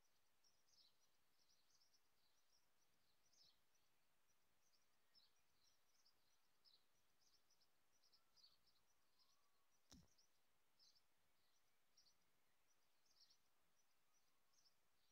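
Very faint outdoor background with many short, high bird chirps scattered throughout, and a single sharp click about two-thirds of the way through.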